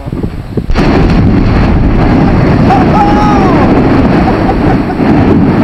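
Volcanic eruption: a sudden blast just under a second in, then loud, continuous rumbling noise of the vent throwing out lava and rock.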